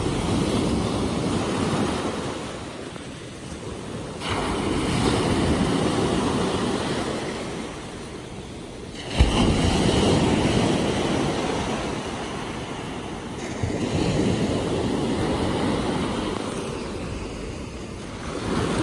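Ocean surf: small waves breaking and washing up the shore, a steady rushing that swells suddenly every four to five seconds and fades between, with the loudest, sharpest break about halfway through.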